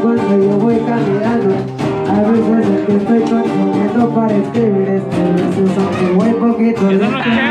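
Live band playing: a man singing into a microphone over strummed acoustic guitars and other plucked string instruments, amplified through a PA speaker.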